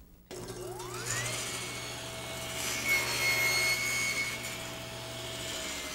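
Table saw switched on, its motor and blade spinning up with a rising whine for about a second, then running steadily as the blade cuts through a small piece of wood in a crosscut sled. Near the end the saw is switched off and the whine starts to drop in pitch as it spins down.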